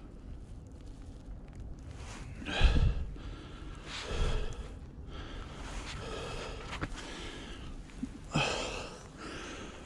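A man breathing hard, with several loud gasping breaths and exhales a second or more apart.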